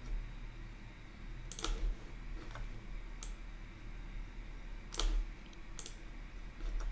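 Computer mouse button clicking about five times, spread unevenly over several seconds, over a faint low steady hum.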